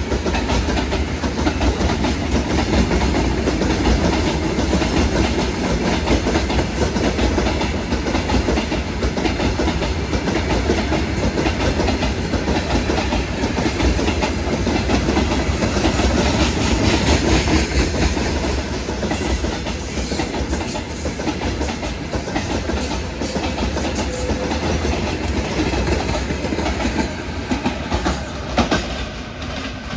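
A freight train of open gondola wagons rolling past at speed, the wheels clattering steadily on the rails over a continuous low rumble.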